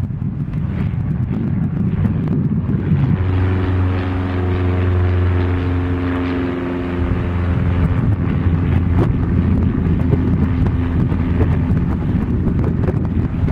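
Small single-engine Cessna's piston engine and propeller running at takeoff power as it climbs out, a steady drone whose engine hum comes through clearly from about three seconds in.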